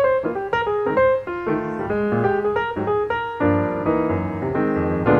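Background piano music: a steady run of single struck notes and chords, each note fading after it is played.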